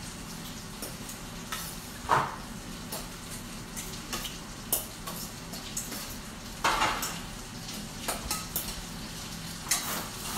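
A fork scraping and clinking in a stainless-steel mixing bowl, with louder knocks about two seconds and seven seconds in, over the steady sizzle of a pork schnitzel and an egg frying in oil in a pan.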